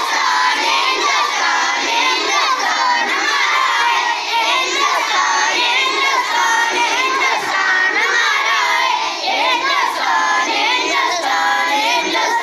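Large group of schoolchildren singing together in unison, loud and without a break.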